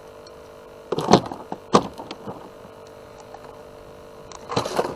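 Short bursts of scuffling and knocking as a channel catfish is worked out of a landing net and onto fish grippers: one about a second in, one near two seconds, and one near the end. A steady hum runs underneath.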